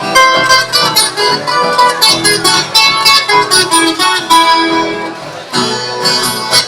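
Acoustic guitars playing the instrumental introduction of a sertanejo song: a quick plucked melody over strummed chords, with a run of stronger strums near the end.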